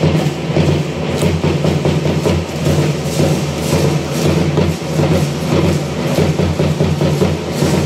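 Rhythmic percussion for a matachines dance: a steady, pulsing drum beat with a brisk clatter over it.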